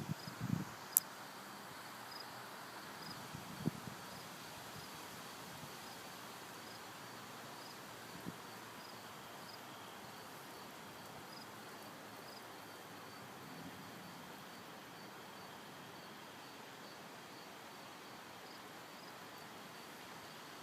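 A cricket chirping steadily, about two chirps a second, over a steady outdoor hiss. There are a few soft low thumps and one sharp click about a second in.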